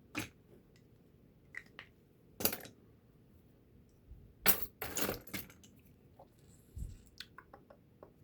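Small metal tools and paperclip wire clinking and tapping on a workbench while being handled: a few sharp clinks with a quick cluster about halfway through, and lighter ticks near the end.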